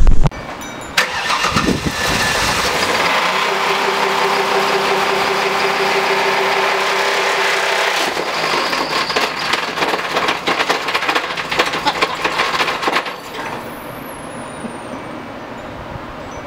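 Car engine in a Ford Taurus running rough with loud, irregular knocking, the sound of a badly worn bottom end. It drops to a quieter run about thirteen seconds in.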